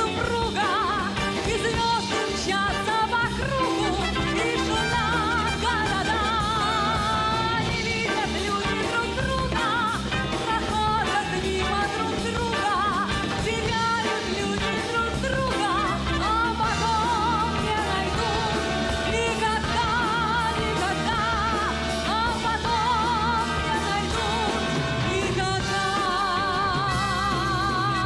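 Live symphony orchestra playing an instrumental passage, with trumpets and trombones prominent and a woman's wordless vibrato singing over it.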